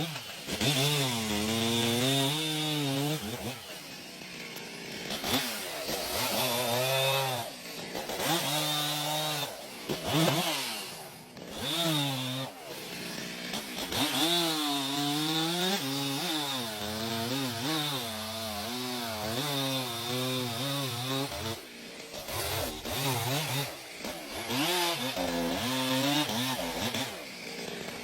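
Two-stroke chainsaw cutting wood, its engine pitch rising and dipping again and again as the throttle opens and the chain bogs down in the cut.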